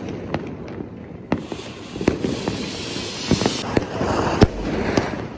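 Firecrackers going off: scattered sharp bangs throughout, with a firework hissing for about two seconds from just over a second in, and one loud bang about four and a half seconds in.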